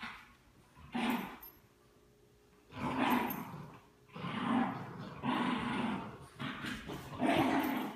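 Small dogs growling in repeated bursts, about one a second and nearly continuous in the second half, while playing tug of war: play growls, not a fight.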